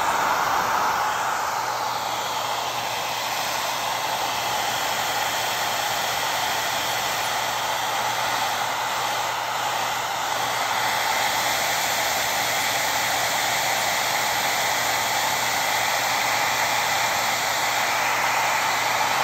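Handheld hot-air blower running steadily with a constant rushing hiss, its tone sliding down over the first few seconds as the nozzle moves. It is heating a spot where PVC vinyl has glued to itself, to release it.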